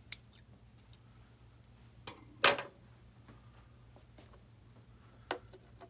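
Cutters snipping the connector end off an LED's thin wire lead: a few small clicks of the tool and one sharp snap about two and a half seconds in, the loudest sound.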